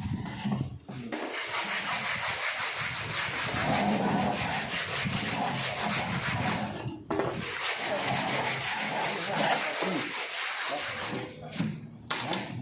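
A rough, steady scraping noise in two long spans, broken briefly about seven seconds in.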